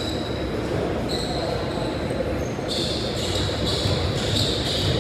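Sneakers squeaking on a hardwood basketball court during play, in short high-pitched chirps that come thicker from about three seconds in, over a steady echoing gym din.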